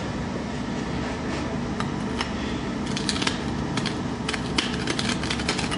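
Reamer on the nose of a pair of lineman's pliers scraping and clicking inside the cut end of a steel EMT conduit, deburring it. The short metallic scrapes come in quick irregular strokes, more often in the second half.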